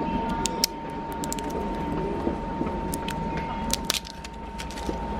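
Small clicks and rattles of the honey jar being handled and opened, over street background noise with a thin steady high tone.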